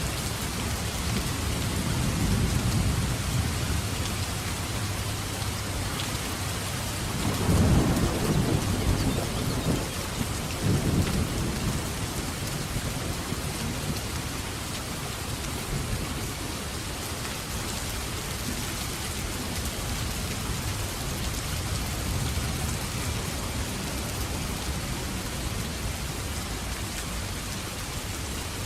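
Steady heavy rain, with rolls of low thunder rumbling through it, the loudest peal about eight to eleven seconds in.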